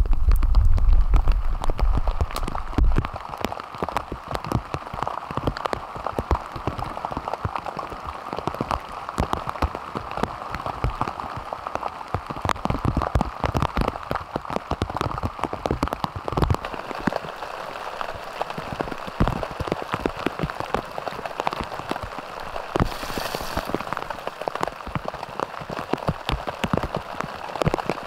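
Steady rain falling on a tarp shelter roof: a dense scatter of separate drops striking. A low rumble sits under it at the start and fades out about three seconds in.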